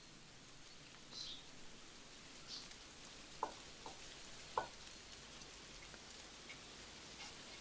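Faint steady hiss with three short, light clicks or taps a little past the middle, the last one the loudest.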